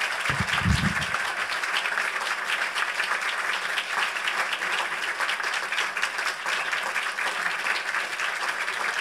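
Audience applauding steadily, a dense even clatter of many hands, with a few low thumps in the first second.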